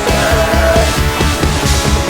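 Loud background music with a driving beat, heavy and aggressive in style.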